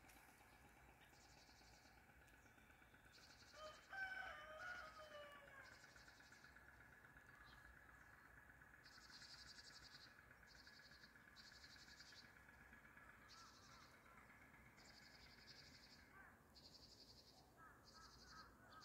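Faint outdoor ambience: a distant rooster crows once about four seconds in, over short high-pitched trills that repeat roughly once a second.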